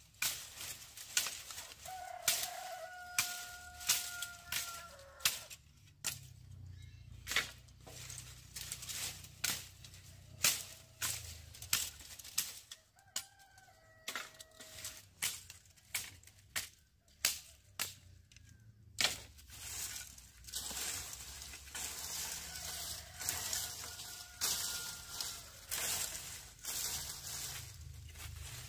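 A run of sharp chopping strokes, one or two a second, typical of a blade cutting through sugarcane stalks. A rooster crows three times in the background, about two, thirteen and twenty-three seconds in.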